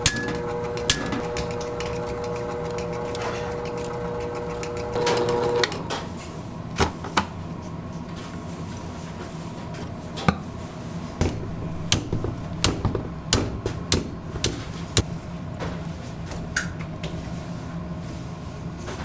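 Stand mixer's motor running steadily while its wire whisk beats a mixture in a steel bowl, with a higher whine that stops about five seconds in. Sharp clicks and knocks come throughout, most often in the second half.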